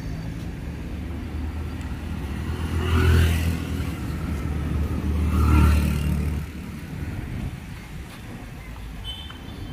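Street traffic: a steady rumble of motor vehicles, with two vehicles passing close by, one about three seconds in and another about five and a half seconds in.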